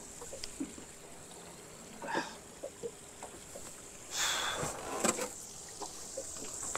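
Faint knocks and rustling from someone moving about in a small boat, with a brief louder rush of noise about four seconds in.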